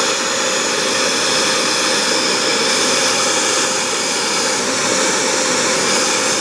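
Hoover FloorMate wet floor cleaner's suction motor running steadily with a loud, even whoosh. The machine is faulty: it is blowing water back out of itself instead of holding it in the dirty-water tank, which the owner takes for the motor drawing water up from the tank through the foam filter.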